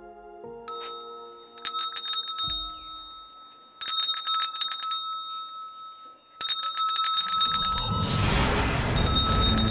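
Small brass hand bell on a street vendor's pushcart, shaken in three bursts of rapid ringing strikes. Near the end a rising rush of noise swells up into low droning music.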